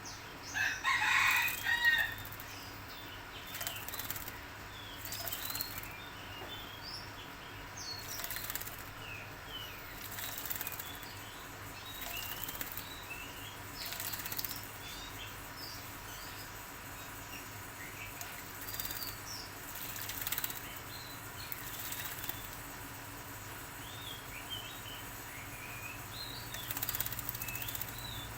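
A small songbird bathing, fluttering its wings in short bursts every second or two, with brief high chirps between them. A louder call comes about a second in.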